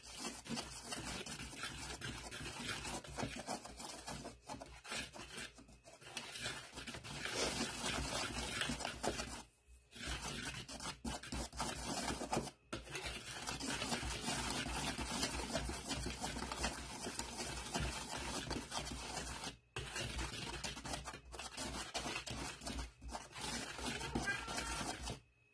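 Wire whisk beating dry flour, salt, baking powder and baking soda in a plastic bowl: a fast, continuous scraping and rubbing of the wires against the bowl, with a few brief pauses, the longest about ten seconds in.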